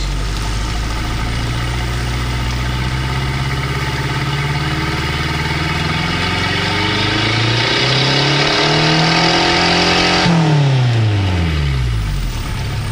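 Mercedes-Benz OM616 2.4-litre four-cylinder diesel idling, then revved up smoothly over several seconds. About ten seconds in the throttle is released and the engine falls back to idle.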